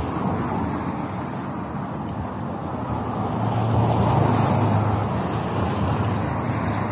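Street traffic noise, with a car passing close by that swells and fades about halfway through.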